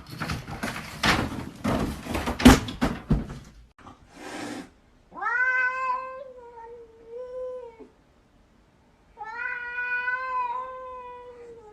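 A domestic cat gives two long, drawn-out meows of about three seconds each, with a pause between them. They follow a few seconds of rustling noise with one sharp thump.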